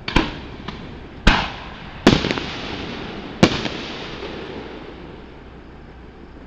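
Aerial firework shells bursting overhead: four loud, sharp booms about a second apart with a couple of smaller pops among them, each trailing off in a rolling echo that fades out after the last one.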